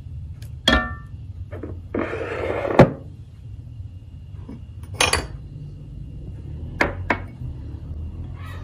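Glass dessert bowls being handled on a countertop: a ringing clink about a second in, a scraping slide ending in a sharp knock near three seconds, then a few more knocks as an empty glass bowl is set down. A steady low hum runs underneath.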